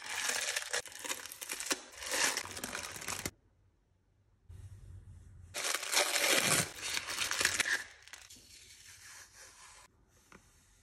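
Thin tissue and wrapping paper crinkling and rustling as it is unwrapped by hand from rolls of washi tape. There are two loud stretches of crinkling with a brief quiet pause about three seconds in, and fainter rustling near the end.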